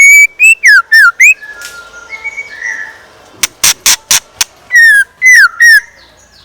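A caged chèo lửa decoy songbird singing loud, clear whistled phrases of slurred notes that swoop up and down, in two bursts. A quick run of sharp clicking notes comes between them.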